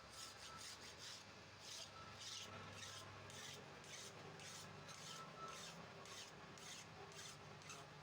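Faint rasping strokes, about two a second, of a hand tool scraping back and forth over a tie rod end being repaired.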